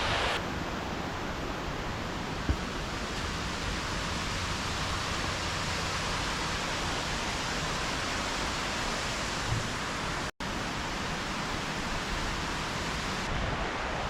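Steady rush of water from a small creek waterfall, an even hiss with no pitch to it, broken by a brief cut to silence a little past ten seconds in.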